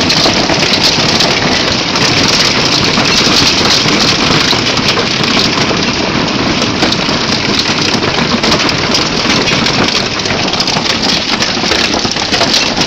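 Heavy hail and rain falling on the ground and the house: a loud, steady, dense clatter of countless small impacts.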